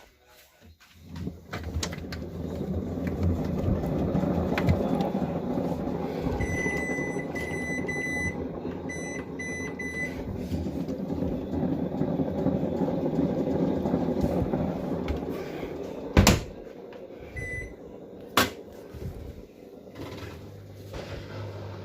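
Hisense PureJet Steam 10 kg washing machine running in its 800 rpm final spin, a steady rushing noise that starts about a second in and eases to a lower hum near the end. A run of short high beeps sounds a few seconds in, and two sharp knocks come a couple of seconds apart in the later part.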